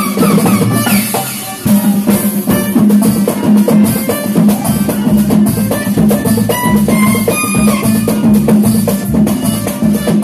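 Live band music: a violin plays sliding phrases over keyboard, then a driving drum rhythm comes in strongly about a second and a half in.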